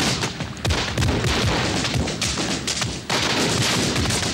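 Battle sound effects: a dense, continuous barrage of gunfire and explosions, shots following one another in quick succession.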